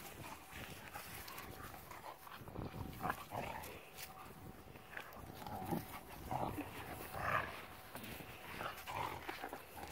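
German Shepherd making short, irregular play noises while tugging on a stick in a tug-of-war.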